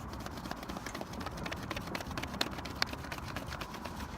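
Crayon rubbed over paper laid on a bench: a quick, irregular series of small clicks and scratches as it bumps over the surface.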